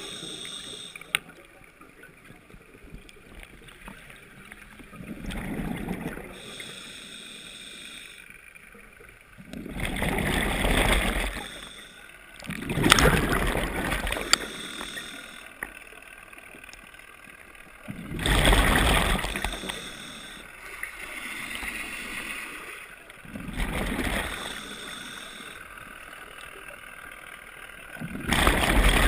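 A scuba diver breathing through a regulator underwater: exhaled bubbles burst out in loud gurgling rushes every few seconds, with quieter stretches between breaths.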